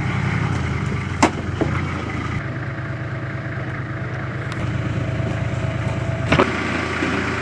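Four-wheel drive's engine idling steadily, with a few sharp knocks: one about a second in, another just after, and a louder one near the end.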